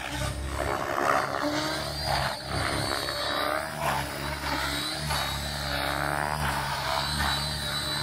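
Electric RC helicopter in flight: the rotor blades whir and the motor whines, the pitch rising and falling as it manoeuvres.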